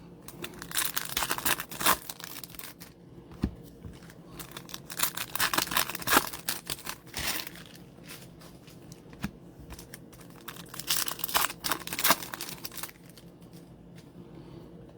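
Foil trading card pack wrappers crinkling and tearing as packs are opened by hand, in irregular bursts of rustling with short pauses, easing off near the end.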